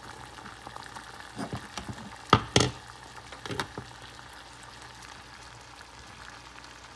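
Water at a rolling boil in a small metal saucepan, a steady bubbling hiss. A few sharp metal clinks from tongs and a car thermostat knocking against the pot come between about one and a half and four seconds in, the loudest pair near the middle.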